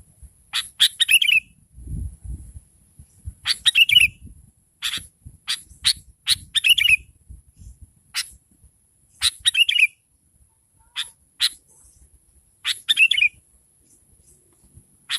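Sooty-headed bulbul calling: short phrases of sharp notes, each ending in a quick warbled flourish, repeated about every three seconds, with single sharp notes in between.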